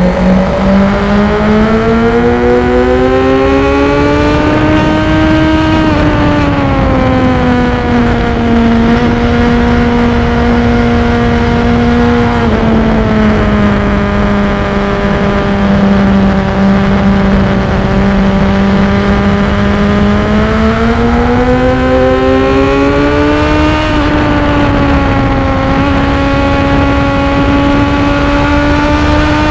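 Sport motorcycle engine heard from on board at speed on a race track, its pitch rising under acceleration for the first few seconds, easing down with small drops around 9 and 12 seconds, holding steady, then rising again about 20 seconds in before levelling off.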